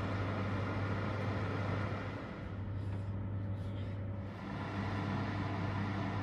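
Electric oven's fan running: a steady low hum under an even rushing whoosh, easing off slightly midway and then rising again.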